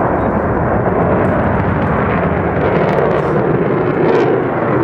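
A fighter jet flying overhead: loud, steady jet engine noise.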